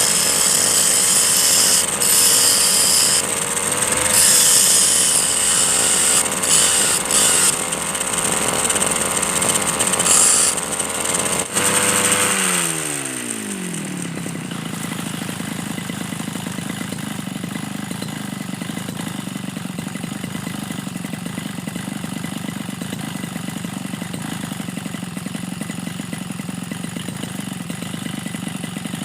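A brush cutter's engine runs at high speed while a steel file is ground on it, with a loud high hiss from the grinding. About eleven seconds in the grinding stops, and the engine winds down to a steady idle.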